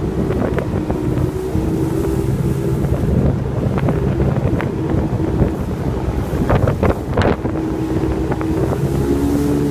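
Motorboat engine running steadily under way, its pitch shifting slightly, with wind buffeting the microphone. A few short sharp knocks come just past the middle.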